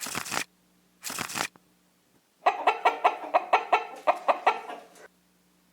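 Two short rustling noise bursts in the first second and a half, then a hen clucking in a quick run of clucks, about five a second, for nearly three seconds.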